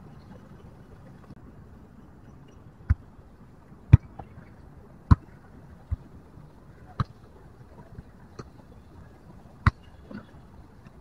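A football being kept up in the air between players, struck by bare feet, thighs and head: a series of sharp thuds, roughly one a second, starting about three seconds in.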